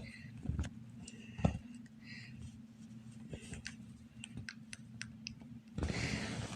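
Faint scattered clicks over a low steady hum, with a hiss rising near the end.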